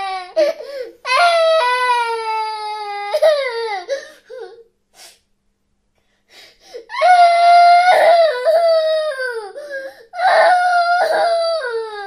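A baby crying in long wails that fall in pitch at their ends, with a break of about two seconds midway before the crying starts again.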